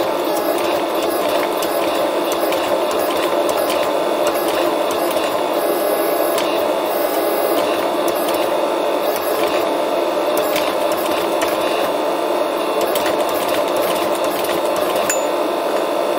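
Forging machine running with a steady, even mechanical drone, with faint irregular ticks on top, as a hot damascus steel billet is worked under its dies.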